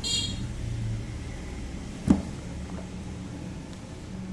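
Hands handling leather high-top sneakers and their laces over a steady low hum: a brief squeak right at the start and one sharp knock about two seconds in.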